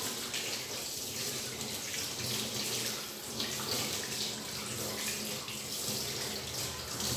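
Kitchen tap running steadily into a sink, the water splashing over hands being rinsed and rubbed under the stream.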